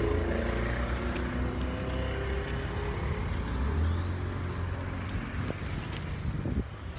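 A motor vehicle engine rumbling nearby, swelling about four seconds in and dropping off near the end, with a few light knocks from the phone being handled.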